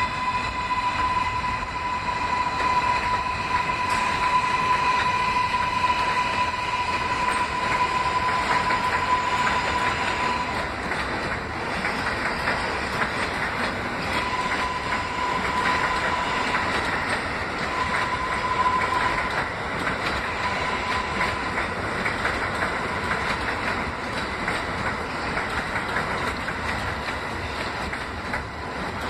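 R143 subway train pulling past at close range as it crosses over onto another track: wheels clattering over rail joints and switch points, with a steady high whine that drops out a few times.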